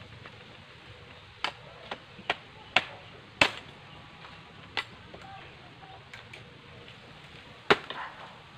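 Bolo knife chopping at the base of a bamboo shoot: about seven sharp, unevenly spaced hacks, bunched in the first half, with the loudest one about three and a half seconds in.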